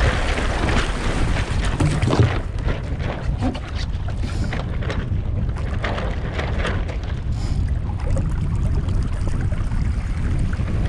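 Wind buffeting the microphone as a steady low rumble, over the rush and splash of water along a Streaker sailing dinghy's wooden hull. The water rush is densest in the first two seconds or so, then thins to scattered splashes.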